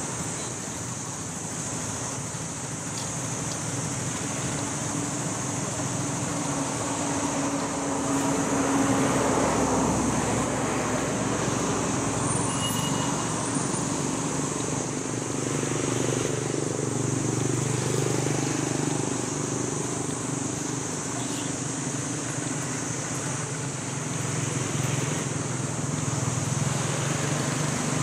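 Steady outdoor background: the low hum of passing road traffic, swelling a little about a third of the way in and again in the second half, over a constant high-pitched hiss.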